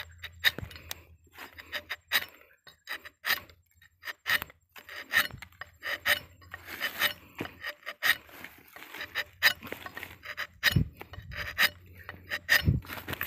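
Rubber-tapping knife shaving a thin strip of bark along the tapping cut of a rubber tree: a long series of short rasping scrapes, about two a second.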